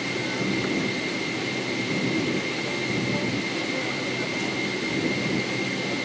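Airliner cabin noise while the plane taxis on the ground: steady jet engine noise heard through the fuselage, with a thin steady whine over it.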